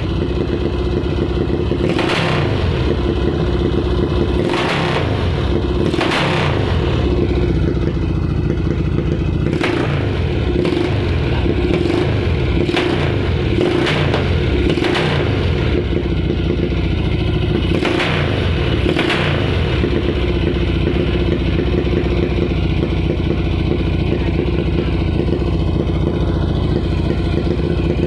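Yamaha XS650 air-cooled parallel-twin engine running through twin exhaust pipes, blipped with quick throttle revs about ten times in the first two-thirds, then left idling steadily near the end. The engine smokes and is due for new piston rings and valve seals.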